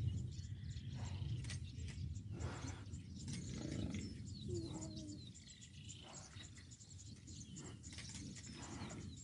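A brief low animal call about halfway through, from the buffalo-and-hyena scene, with small birds chirping and a low rumble that fades after the first few seconds.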